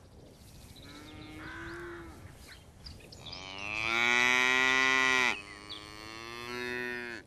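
Beef cattle mooing: a faint short call about a second in, then a long loud moo from about three to five seconds in, then a quieter moo that ends just before the close.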